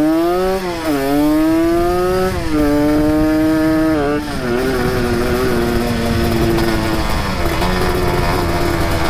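Two-stroke single-cylinder Kawasaki Ninja motorcycle engine under hard throttle. It climbs in pitch and drops back twice in the first few seconds, then holds a steadier, lower note. The owner reports the bike's piston as worn and loose.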